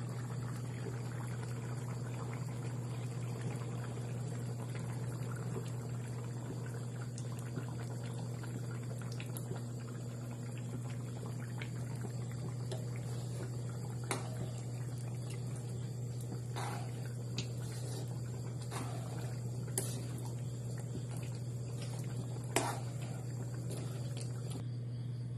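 Noodle broth simmering in a large aluminium pan over a steady low hum, with a ladle knocking against the pan a few times in the second half as the noodles are stirred.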